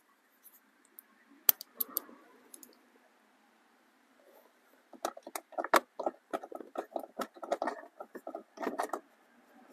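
Small hand ratchet driving tiny screws into the plastic HVAC housing of a blend door actuator. A few sharp clicks come first, then from about halfway a quick, irregular string of clicks and rattles for about four seconds.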